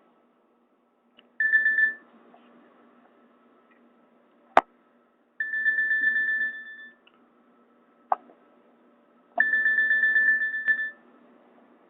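A Nokia 216's speaker playing Nokia N81 ringtones in short snatches: three bursts of a high, rapidly trilling tone, each cut off after a second or so. Two sharp clicks fall between the bursts.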